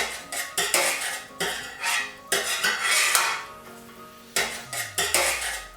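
Metal utensils scraping and clattering against a metal roasting tray in a quick run of short strokes, as roasted vegetables are scooped out and moved onto another tray.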